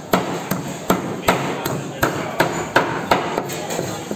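Blade scraping scales off a king soldier bream in quick, even strokes, about ten of them, each ending in a sharp knock on the wooden cutting board.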